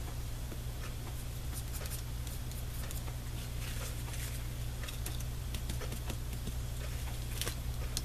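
Steady low electrical hum with scattered faint clicks and taps from paper and small craft items being handled on a cutting mat.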